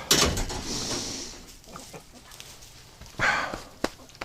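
Short animal calls, one about three seconds in and another at the very end, from the ducks or the dog, after a loud rustling noise at the start.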